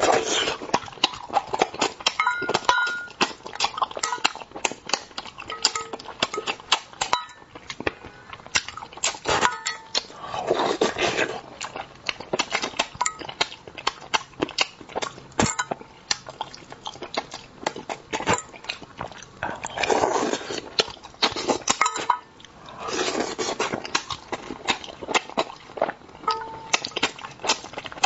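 Wet mouth sounds of someone eating spicy braised crucian carp: rapid lip smacking, sucking and chewing clicks, with a few longer slurps along the way.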